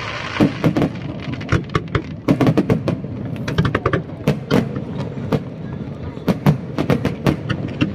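Aerial fireworks display: many sharp bangs of bursting shells in quick volleys over a steady rumble, densest about two to three seconds in and again around six to seven seconds in.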